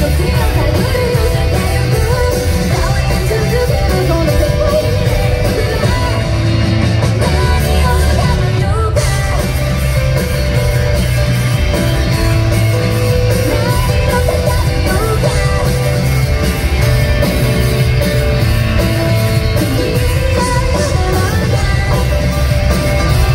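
Live rock band playing at concert volume, heard from the audience: electric guitars, bass and drums with a female lead singer.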